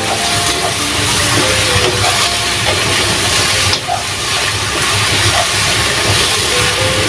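Sponge gourd and baby squid sautéing in hot oil in a pan: a steady, loud sizzling hiss.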